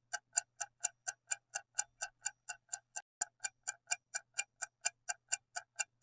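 Clock-tick countdown sound effect: even, sharp ticks at about four a second, marking the time allowed to answer a quiz question.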